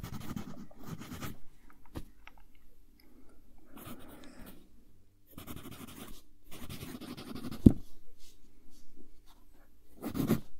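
Pencil writing by hand on lined paper: scratchy strokes in bursts with short pauses, and one sharp tap of the pencil about two-thirds of the way in.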